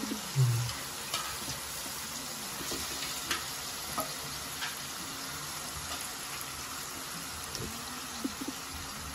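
Raw chicken pieces frying in hot oil and onion masala in an aluminium kadai: a steady sizzle broken by a few sharp crackling pops, as the freshly added chicken starts cooking off its water. A soft thump just after the start as the last pieces drop into the pan.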